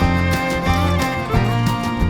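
Upbeat country-style background music, plucked guitar with fiddle over a steady beat.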